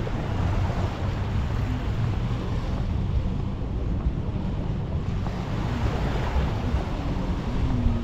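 Surf washing onto a sand beach, mixed with wind buffeting the action camera's microphone as a steady low rumble.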